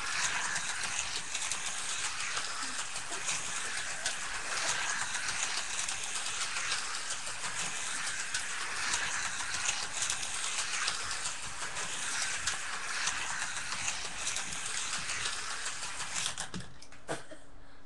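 Slot cars running around the track, a steady whirring noise that stops suddenly near the end.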